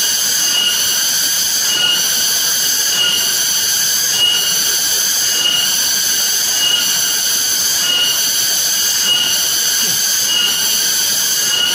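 Loud chorus of cicadas: a steady, high-pitched buzz with a regular pulse a little under twice a second.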